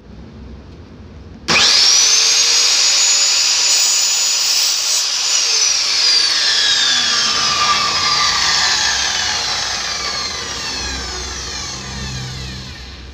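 Handheld electric circular saw starting abruptly and cutting metal frame stock, with a loud high whine and a harsh cutting noise. After a few seconds the whine falls steadily in pitch as the blade winds down.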